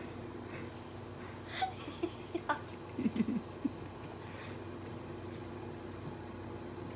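Steady low hum in a quiet room, with a few faint clicks and a brief muffled vocal sound about three seconds in.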